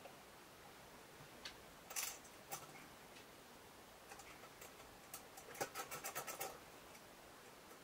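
Faint metallic clicks of small hardware being handled: a few single clicks, then a quick rattle of clicks about five and a half seconds in as a steel coil spring is hooked over a bolt on a steel bracket.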